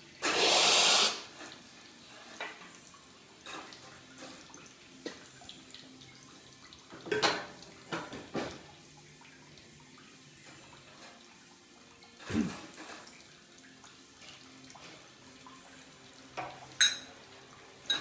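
Steam wand of an Elektra Maxi three-group espresso machine hissing in a short blast of about a second, then scattered knocks and clinks of a portafilter being locked in and ceramic cups set down on the metal drip tray, one near the end ringing briefly.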